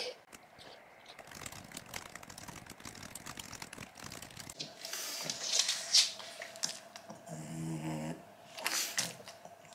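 Laptop keyboard typing, a quick patter of light clicks. About four and a half seconds in it gives way to a pug's loud snorting breaths, twice, with a short pitched grunt between them.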